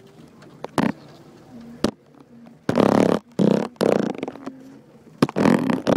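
Daihatsu Fourtrak crawling over rough off-road ground, its engine a low drone under scattered sharp knocks and clicks. From about halfway there are several loud, rough rushes of noise.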